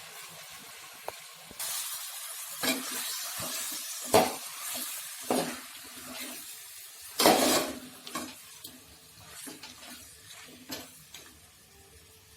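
Chicken pieces going into a hot pan of oil, onion and ginger-garlic paste, sizzling from about a second and a half in while a spoon scrapes and knocks against the pan as it is stirred. The loudest scrape comes about seven seconds in, after which the sizzle settles to occasional clinks.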